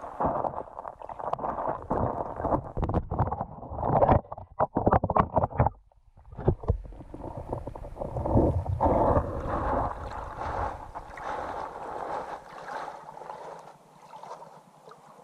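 Creek water flowing over a rocky bed, heard through an underwater camera's housing: a muffled rushing and gurgling with a cluster of sharp knocks about four to six seconds in, a brief drop-out near six seconds, then steadier flow that grows fainter toward the end.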